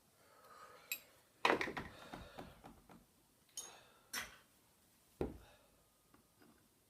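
Handling noise of metal tools and parts on a workbench: about five separate sharp knocks and clinks, the loudest about a second and a half in, ringing briefly.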